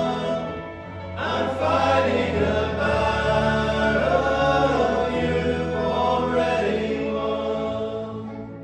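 Men's choir singing a worship song together over keyboard piano accompaniment. There is a short break between phrases about a second in, and the voices fade out near the end.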